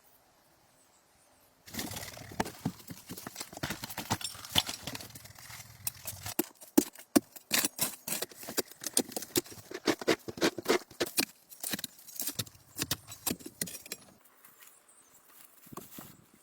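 Rapid, irregular hollow knocking and clattering that starts about two seconds in and dies away near the end.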